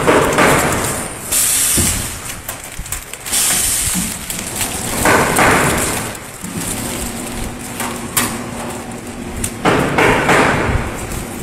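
Horizontal flow-wrapping machine running with a steady low hum, while plastic film and bagged frozen chicken blocks crinkle and knock in loud bursts about every five seconds.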